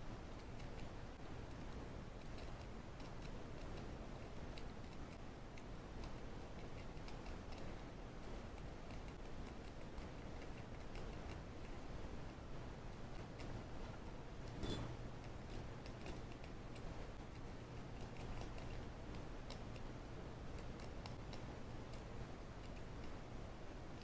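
Faint, irregular metallic clicking and scraping from a rake pick working the pins of a small 4-pin ABUS 55/40 padlock under a tension wrench. One louder click comes about two-thirds of the way through. A steady low hum runs underneath.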